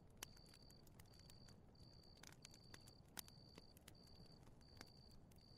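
Faint campfire crackling: scattered small pops and snaps at irregular intervals over a low, quiet rumble.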